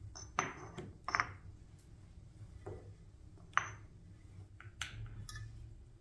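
Hard objects being handled: about five sharp knocks and clinks, two close together in the first second and more about halfway through and near the end, some with a brief high ring.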